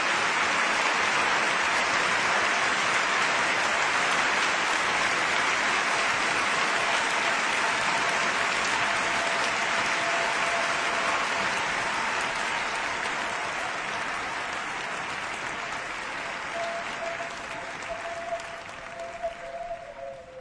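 Audience applause, a steady dense clapping that slowly dies away over the last few seconds as a held musical note comes in.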